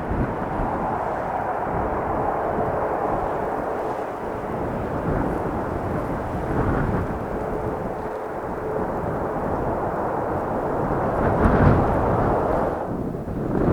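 Aircraft engine noise, with strong gusty wind buffeting the microphone and a low uneven rumble.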